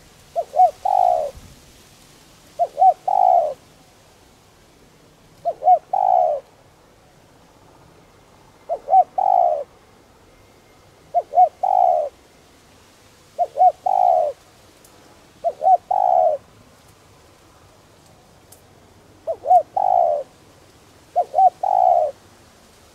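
Spotted dove singing its cooing song: nine phrases a couple of seconds apart, each two short coos followed by a longer, falling coo.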